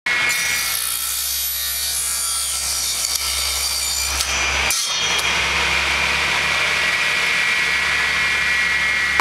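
Steady mechanical running noise: a high hiss with a constant whine and a low hum, breaking off for a moment about five seconds in.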